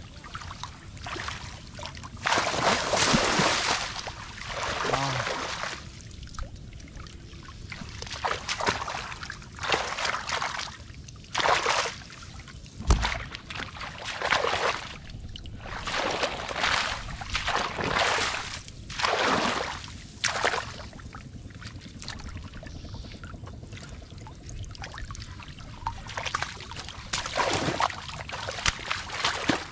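Shallow muddy water splashing and sloshing in irregular bursts as hands and feet churn it while groping for fish, with one sharp knock near the middle.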